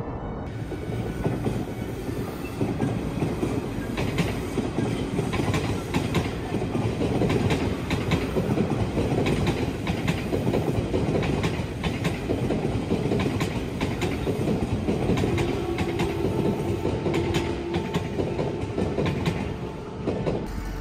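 A train running past, a steady rumble of wheels on rails with repeated sharp clacks over the rail joints, easing off near the end.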